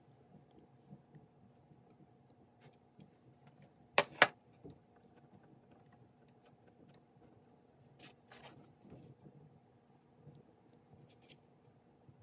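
Small handling noises of a plastic display base and a caulk tube being handled on a desk, over a faint steady hum. Two sharp knocks in quick succession about four seconds in, hard objects set down on the tabletop, and some soft rustling near the two-thirds mark.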